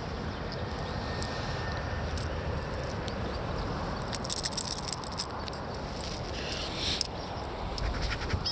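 Steady rush of flowing river water, with clusters of short sharp clicks about four seconds in and again near the end.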